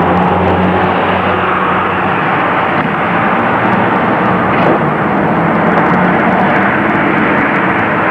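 A W2 class tram running slowly through a curve, a steady loud rumble of its wheels on the rails with a low hum from its motors that fades away near the end.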